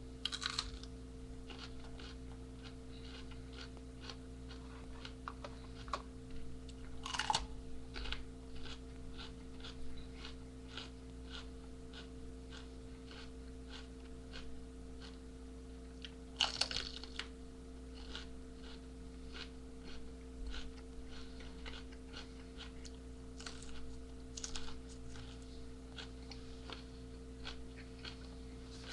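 Someone chewing and crunching a raw jalapeño pepper: many small, irregular crunching clicks, with a few louder bites about seven and sixteen seconds in.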